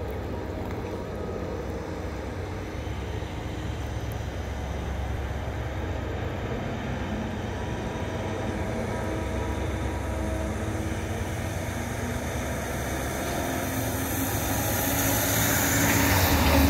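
Reading and Northern diesel freight train approaching: a steady low engine drone that grows gradually louder, with rail and wheel noise building in the last few seconds as it nears.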